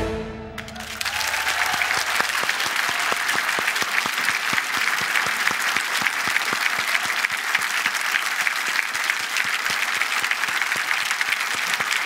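Studio audience applauding steadily, rising in about a second in as the last notes of the music die away.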